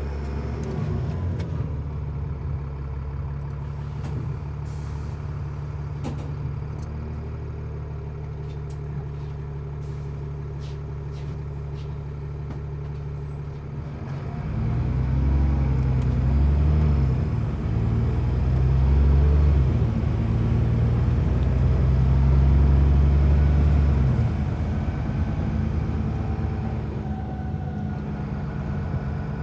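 A city bus's diesel engine heard from inside the passenger cabin, running with a steady low drone and a few light rattles and clicks. About halfway through it grows louder and its pitch rises and falls three or four times, as the bus accelerates through its gears, then it settles back to a steady drone near the end.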